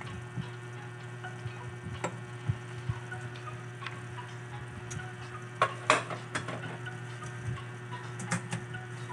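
Pot of spinach and tofu soup boiling on a stove, with scattered small bubbling pops and clicks over a steady low hum. A brief cluster of louder pops comes about six seconds in.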